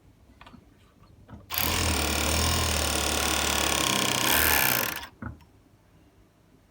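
Four-thread overlock sewing machine running in one steady burst of about three and a half seconds, stitching two strips of tricot fabric together, starting about a second and a half in and stopping near five seconds, followed by a short click.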